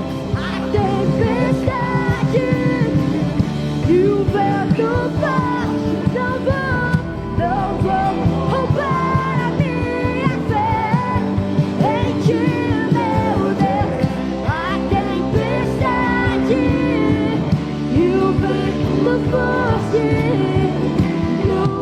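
Worship band music with singing: sustained chords over a melody line that rises and falls.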